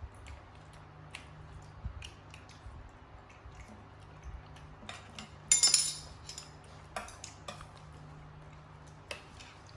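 Scattered light clinks and knocks of dishes and utensils being handled, with one louder clatter about five and a half seconds in.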